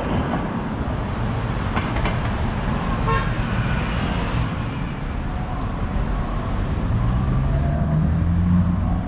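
Steady road traffic on a busy multi-lane city street, with a short horn-like toot about three seconds in and an engine note rising in pitch near the end as a vehicle speeds up.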